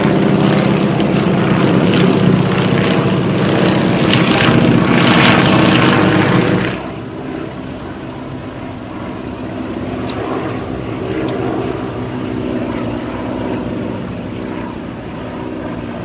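Formation of three vintage biplanes flying overhead, the drone of their radial engines and propellers loud and steady. About seven seconds in the sound drops abruptly and carries on at a lower level.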